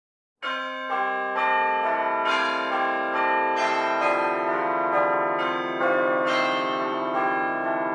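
Bell chimes playing an intro melody: a string of struck bell notes, about two a second, each left ringing so the notes overlap into a continuous peal. It starts about half a second in.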